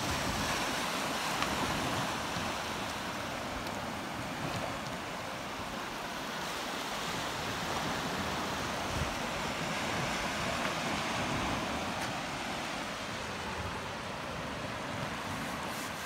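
Sea surf washing up onto a sandy beach: a steady rushing wash of small breaking waves that swells and eases as they run in, with wind on the microphone.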